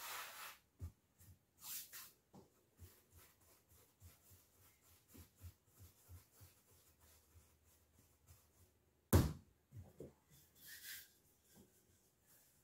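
Faint soft pats and rubs of a small ball of pastry dough being shaped and pressed between the hands on a floured benchtop, with one sharp knock about nine seconds in.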